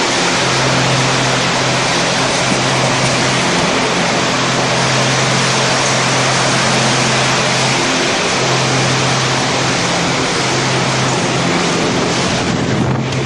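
Storm of heavy rain and strong wind: a loud, steady roar of rain and gusts, with a low hum underneath that drops out briefly about four seconds in and again about eight seconds in.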